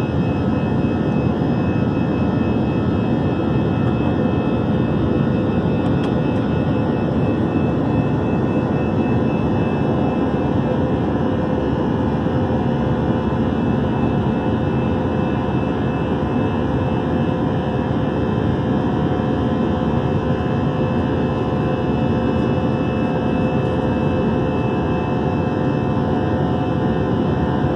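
Steady jet airliner cabin noise heard from inside an Airbus A321-211 in flight: a constant rush of air and CFM56 engine noise with a few steady humming tones, unchanging throughout.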